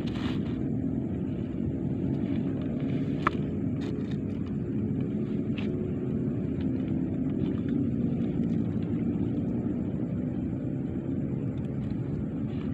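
A steady low engine hum, with a few small sharp clicks about three to six seconds in.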